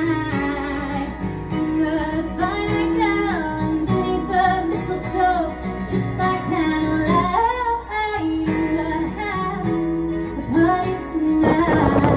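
Music: a woman singing a melody over guitar accompaniment, with a denser strummed passage near the end.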